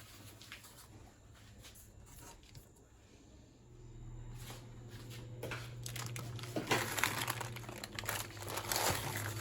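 Crinkling and rustling of paper or plastic kitchen wrapping being handled, starting about halfway through and growing busier toward the end. A low steady hum comes in a few seconds in.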